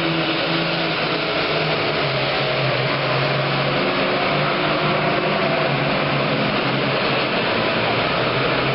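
Super Farm class pulling tractor's modified diesel engine running flat out under load, a loud steady drone with a dense noisy top and little change in pitch.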